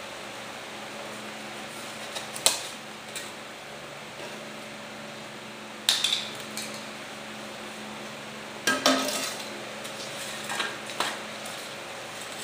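Foam bulkhead pieces and a hot-wire foam cutter being handled and set down on a wooden table: a few sharp knocks and clatters, the loudest about six and nine seconds in, over a steady low hum.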